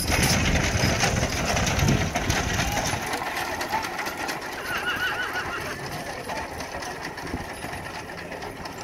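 Horse-drawn potato digger clattering as a team of draft horses pulls it through the row. The rattle is loudest for the first few seconds, then fades as the rig moves away.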